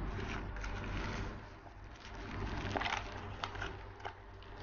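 Plastic packaging rustling and crinkling as it is handled and pulled out of a product box, with a few sharper crackles, over a steady low hum.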